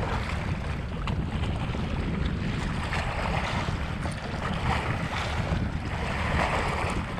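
Steady wind buffeting the microphone over small waves washing against a rocky shoreline.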